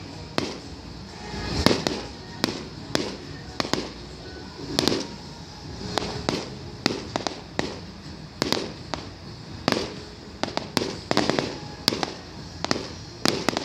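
Aerial fireworks going off: sharp bangs, pops and crackles in quick, irregular succession, several a second. A few deeper, swelling booms are mixed in, the loudest about two seconds in.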